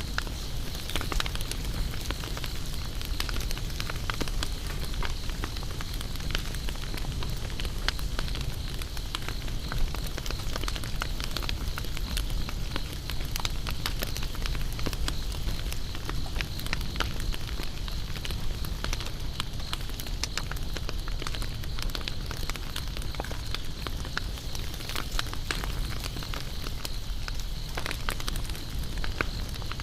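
Wood campfire crackling, with many small pops and snaps and one louder snap about ten seconds in, over a steady high-pitched insect drone.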